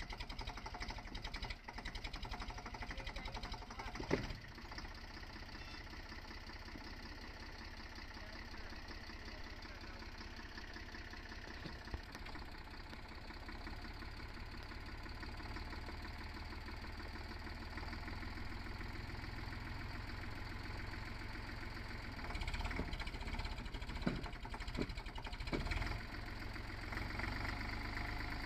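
Small farm tractor's diesel engine running steadily while the tractor is stuck in mud, with a few sharp knocks and a louder, rougher stretch near the end.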